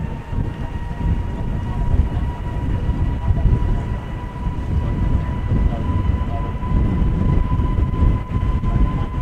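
Airbus A320neo's CFM LEAP-1A turbofan engines at high power on the takeoff roll: a deep rumble under a high fan whine that climbs slowly in pitch.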